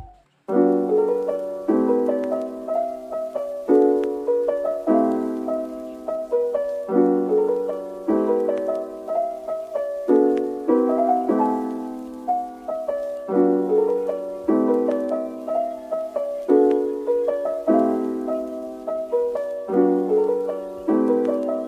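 Background music: a soft piano piece of gently repeated chords, starting after a brief silence at the very beginning.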